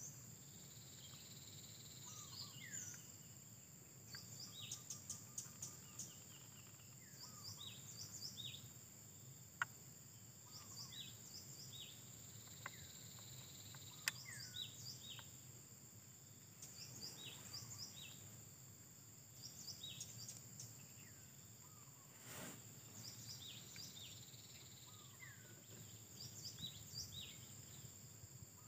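Small birds chirping in short, repeated, downward-sliding calls over a steady high-pitched insect drone, with a few faint clicks.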